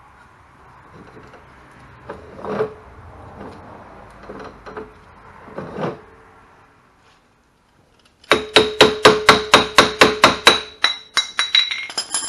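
A low, rough metallic clatter with a few knocks, then a fast, even series of sharp, ringing metal-on-metal strikes, about six a second, lasting some four seconds.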